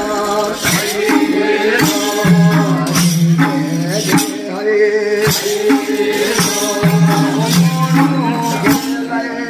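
Bhailo folk song being performed: long held sung notes over a steady percussion beat with jingling strokes.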